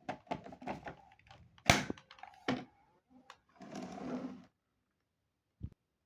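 Hard objects being handled, knocking and clicking, with one sharp clack nearly two seconds in, a short rustling stretch around four seconds in and a single dull thump near the end.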